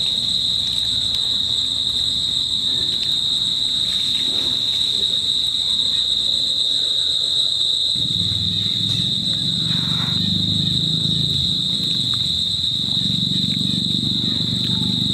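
Steady insect chorus: one unbroken, shrill high-pitched drone. A low murmur joins it about halfway through.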